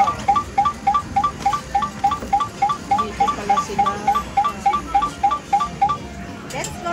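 Arcade ticket-redemption machine paying out a win, its two-note electronic beep repeating about three to four times a second as the tickets come out, stopping about six seconds in.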